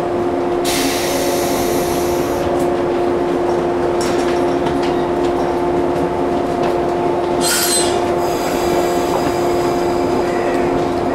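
Shinano Railway 115 series electric train standing at the platform before departure, its onboard equipment giving a steady electrical hum. A loud hiss of air starts about a second in and lasts over a second. A short loud hiss comes at about seven and a half seconds, followed by a fainter hiss.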